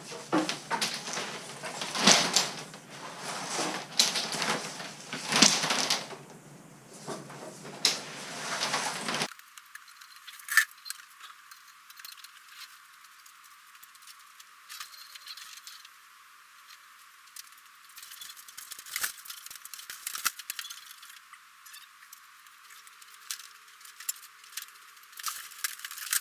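PEX plastic tubing being pulled off its coil and bent straight by hand: irregular rustling, scraping and clattering of the stiff pipe. Loud for about nine seconds, then faint and thin-sounding with scattered clicks.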